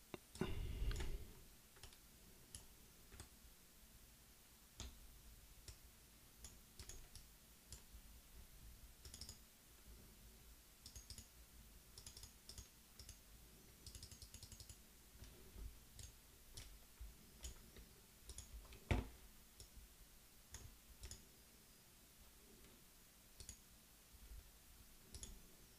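Faint computer mouse clicks, scattered and irregular. A louder low thump comes about a second in, and a sharper, louder click near nineteen seconds.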